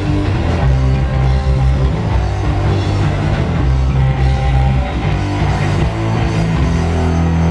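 Heavy metal band playing live and loud: distorted electric guitars, bass and drum kit in a chugging riff that gives way near the end to a held chord.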